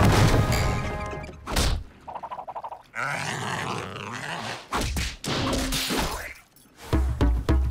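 Cartoon sound effects in quick succession: a splashing rush, then whooshes and thuds. About a second before the end, a large drum starts a steady fast beat, about four strokes a second.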